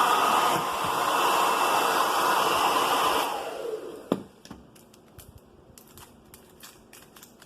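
Hand-held hair dryer blowing hot air to shrink a plastic protection sleeve onto a remote control. It is switched off a little over three seconds in and winds down over about half a second. A sharp click follows, then faint scattered ticks and rustles of plastic being handled.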